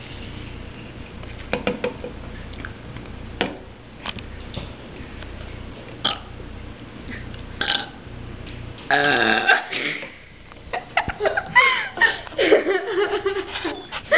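Girls burping on purpose, together. The loudest is one long burp about nine seconds in, followed by more burping sounds that waver in pitch near the end.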